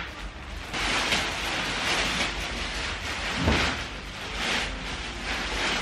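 Clear plastic wrapping on a new mattress crinkling and rustling as it is cut and pulled about, with one dull thump about three and a half seconds in.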